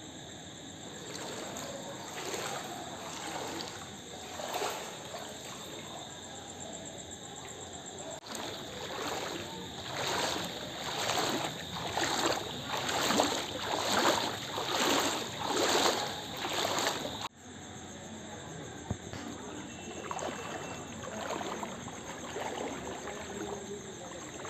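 Someone wading through shallow floodwater, the water splashing and sloshing about once a second, loudest in the middle stretch.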